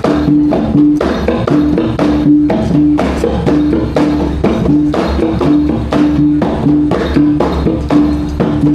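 Traditional Iban gendang pampat percussion music: drums and gongs struck in a fast, steady rhythm, with a short pitched note repeating over and over.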